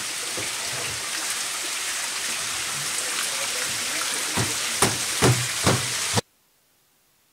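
Fermented chang'aa brew pouring out of plastic drums and splashing onto a flooded floor, a steady rush of liquid. Four louder splashes come in quick succession near the end as a wooden pole strikes the pooled brew, then the sound cuts off suddenly.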